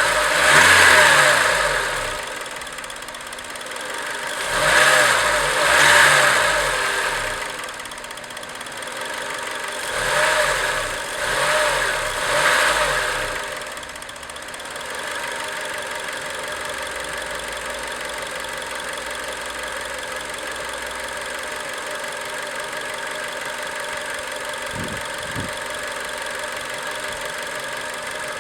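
Acura RSX Type-S 2.0-litre four-cylinder engine revved in short blips several times, then settling to a steady idle about halfway through. The owner is chasing a ticking noise that he says comes once the engine is warm.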